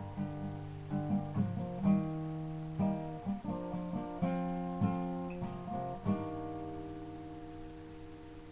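Acoustic guitar playing the closing chords of a song: several picked chord changes about a second apart, then a final chord struck about six seconds in and left ringing as it fades away.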